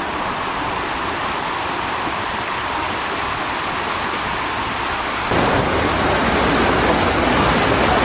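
Water rushing down a wide open tube-slide flume, a steady hiss and churn. It gets louder and fuller about five seconds in.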